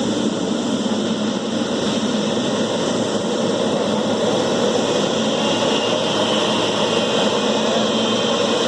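Boeing 777-300's jet engines running, a steady rushing noise with a faint high whine, growing slowly louder.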